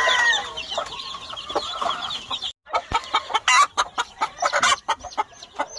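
A brood of young chicks peeping in fast, high-pitched cheeps, with softer clucking under them. After a brief break partway through, a quick irregular run of sharp taps and clicks follows.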